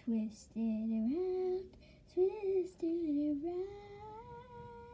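A young girl singing: a few short gliding notes, then a slide up into one long held note near the end.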